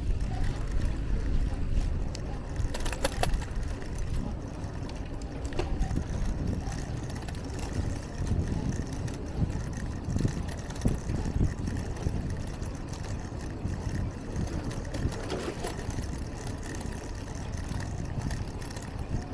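City street noise heard from a moving bicycle: a steady low rumble of wind and road noise, with traffic around it and a few light clicks.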